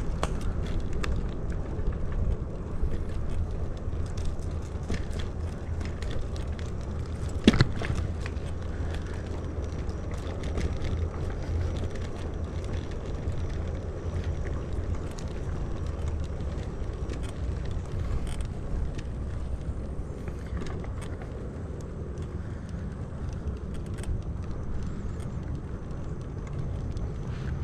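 Wind buffeting the microphone and tyre noise from a bicycle riding along, a steady low rush with scattered small clicks and one sharp knock about seven and a half seconds in.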